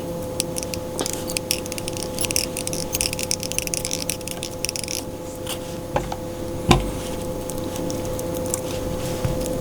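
Light rustling and small clicks of hands working living-rubber skirt strands and tying thread on a jig, with two soft knocks about six and seven seconds in, over a steady hum.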